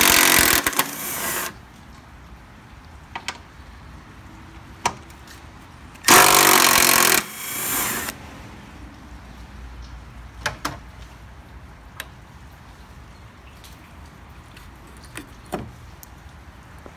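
A power tool running in two bursts of about two seconds each, at the start and about six seconds in, spinning out the 10 mm bolts of a car's headlight assembly. Light clicks and knocks of parts being handled follow.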